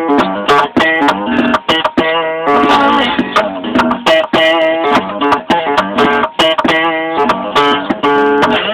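Acoustic guitar strummed in a funk blues style: ringing chords broken up by sharp percussive strokes in a steady, choppy rhythm.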